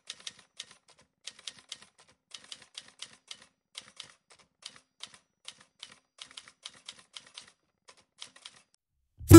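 Typewriter key-click sound effect: quick, irregular runs of light clicks with short pauses, keeping time with on-screen text being typed out. Just before the end a loud strummed guitar chord comes in.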